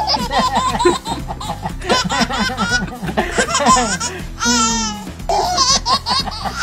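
Babies laughing, first one and then another, in quick runs of high-pitched giggles and belly laughs, with a high, warbling squeal about halfway through. Background music plays underneath.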